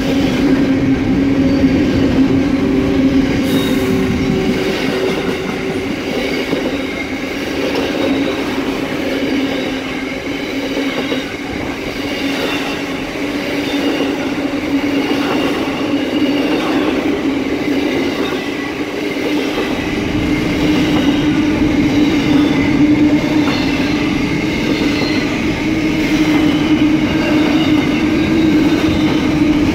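Container freight train's wagons rolling past at close range: a continuous noise of steel wheels on the rails with steady ringing tones over it, the low rumble growing heavier about two-thirds of the way through.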